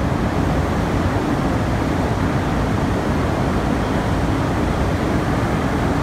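Blast furnace tap hole being opened: a steady, loud roar, heaviest in the low range, with no separate knocks or bangs.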